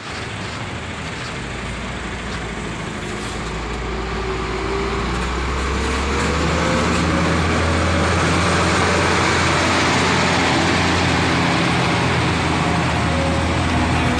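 Diesel engine of a Lorena intercity coach bus pulling away. The engine note climbs and the sound grows louder over the first several seconds, then holds steady and fierce.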